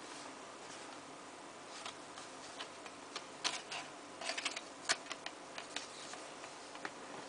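Hands handling a DVD box set's paper episode insert and card disc sleeves: scattered light rustles and clicks, busiest from about three and a half to six seconds in.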